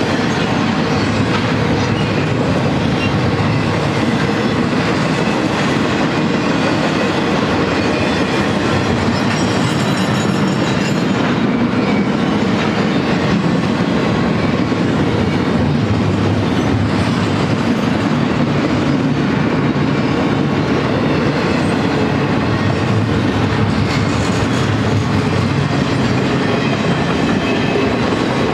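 A BNSF double-stack intermodal freight train's cars, container well cars and then flatcars carrying highway trailers, rolling past close by: a loud, steady noise of steel wheels running on the rails.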